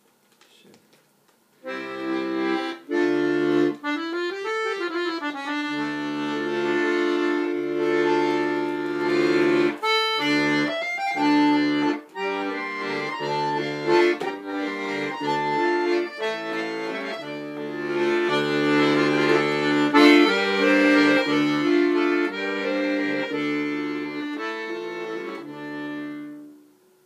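Brandoni button accordion with hand-tuned reeds playing a tune in chords over bass notes. The playing starts about a second and a half in and stops shortly before the end. It sounds amazing, with so much power in it.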